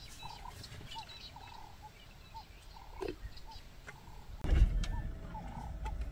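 An animal calling over and over in short chirps, about two a second, over a low rumble. A loud knock comes about four and a half seconds in.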